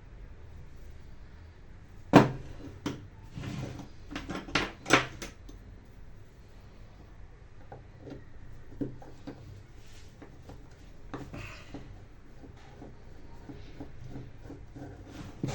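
Hard knocks and clicks of parts and tools being handled while the angle grinder is serviced. The loudest knock comes about two seconds in, a quick run of knocks follows around four to five seconds, then lighter scattered clicks.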